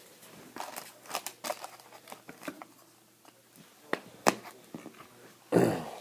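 Hockey card pack wrapper crinkling and being torn open, with scattered small crackles and clicks as the cards are handled, and a louder rustle near the end.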